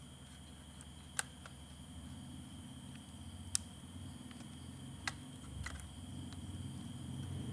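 Sharp plastic clicks and low rubbing as a hard-drive caddy is slid and pressed into a laptop's optical drive bay, with four distinct clicks spaced a second or two apart.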